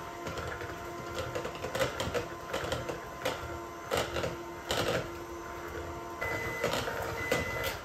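Electric hand mixer running steadily, its beaters clicking against the bowl as it beats the cream filling. About six seconds in the mixer stops and an electronic timer starts beeping in short repeated beeps.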